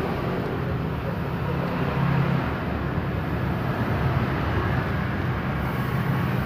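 Steady background rumble of motor traffic with a low hum, unchanging throughout.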